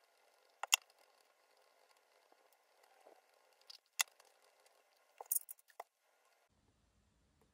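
Hands handling a polished leather shoe and a flannel buffing cloth: faint rubbing broken by a few sharp clicks and taps, the loudest about a second in, then two more around four seconds in and a quick cluster a little after five seconds.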